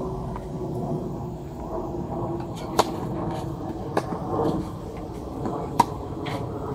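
Tennis ball struck by racquets in a rally on a clay court: three sharp pocks about a second and a half apart, the first about three seconds in, likely the serve. Fainter ball bounces fall between the hits, over a steady low background hum.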